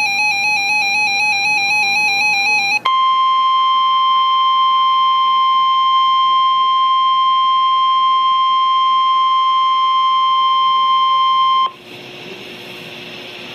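A warbling electronic data burst for about three seconds, then the NOAA Weather Radio warning alarm tone, a single steady tone near 1050 Hz held for about nine seconds and cut off abruptly. The alarm tone signals that a warning broadcast is about to follow; low radio hiss remains after it.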